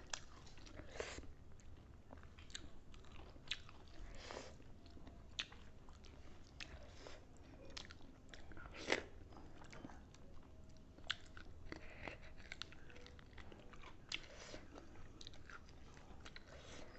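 Close-up eating sounds: a mouth chewing and biting food, with irregular wet smacks and occasional crunches, the sharpest about nine seconds in.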